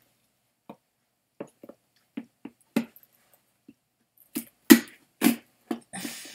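Scattered short crinkles and knocks of a sealed package being handled and picked at as someone tries to open it, with two louder ones about five seconds in.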